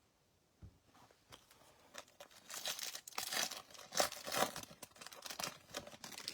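A few light clicks, then a few seconds of dense crinkling and rustling from thin plastic trading-card packaging being handled.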